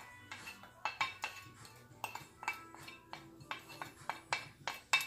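Wooden spoon tapping and scraping diced onion off a ceramic plate into a slow cooker: about a dozen quick, irregular clinks with a brief ring, over background music.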